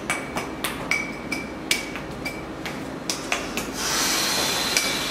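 Flair bartender's bottle clinking against a metal shaker tin in quick taps, about three a second, several of them leaving a short metallic ring. A louder rushing noise comes in about four seconds in.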